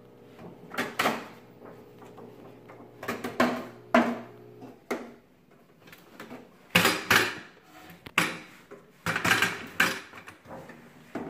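A wide metal painting knife scraping and knocking on a palette board as paint is worked, in a string of short, uneven scrapes. A faint low hum runs under the first half and stops a little before the halfway point.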